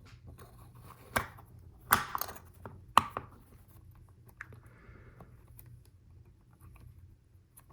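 Plastic Lego Technic pieces being handled and fitted, with sharp clacks about one, two and three seconds in and lighter ticks between.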